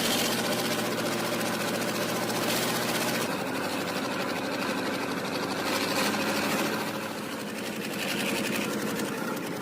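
Engines of heavy tracked vehicles running steadily, with a fast, even mechanical clatter over a low hum.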